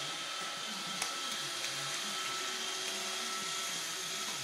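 Roomba robot vacuum running: a steady whirring hiss with a high whine, and a sharp click about a second in.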